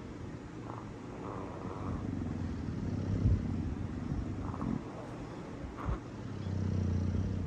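Sleeping bulldog snoring: a low buzzing snore that swells and fades with each slow breath, a few seconds apart, loudest near the end.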